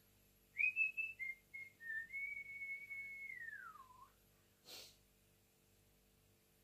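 A person whistling: a few short notes, then a long held note that slides down in pitch at the end. A short burst of noise follows.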